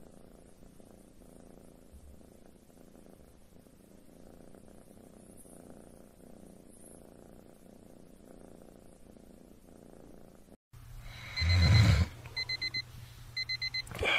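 A kitten purring faintly and steadily. After a sudden cut near the end, a brief loud thud, then an electronic alarm clock beeping in quick bursts of about four beeps.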